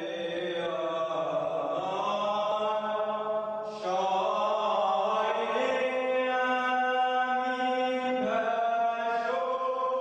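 A man chanting long, held notes over a low, steady drone, shifting to a new pitch about four seconds in and again a little after eight seconds.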